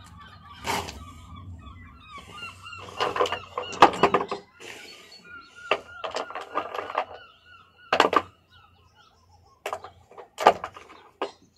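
Sharp knocks and clinks of stone on stone as ammonite fossils are split and handled, some in quick clusters and some single.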